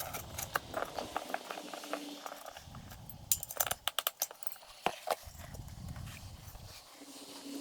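Hands working a rubber inner tube into a motorcycle tire on its wheel: irregular clicks and knocks with rubbing, and a quick run of clicks about three and a half seconds in.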